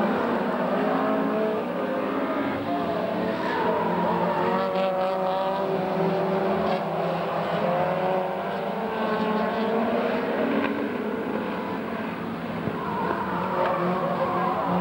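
Engines of several saloon race cars running hard together, their pitches gliding up and down as the drivers accelerate and lift.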